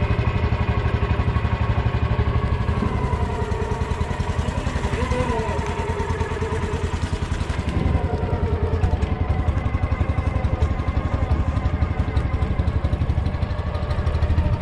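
Small motorboat engine running steadily, with a fast, even chug.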